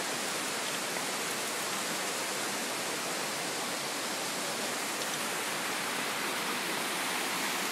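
Mountain stream rushing over rocks in small cascades: a steady, even rush of water that holds the same level throughout.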